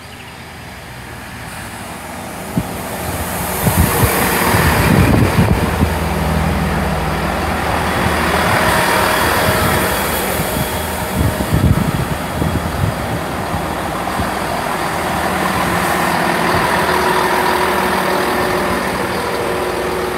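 Class 166 diesel multiple unit pulling into the platform, its diesel engines growing louder over the first few seconds, then running loud and steady.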